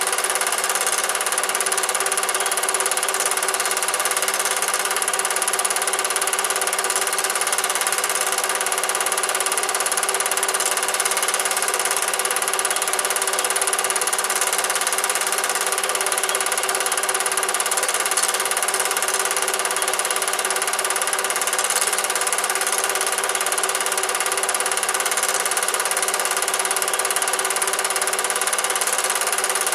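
Cine film projector running steadily: an unbroken mechanical whir from the projector's motor and film transport, which is all there is to hear on this silent home movie.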